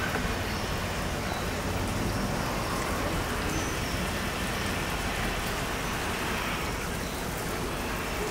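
Steady outdoor hiss with a low rumble underneath, much like rain falling; nothing from the tiger stands out.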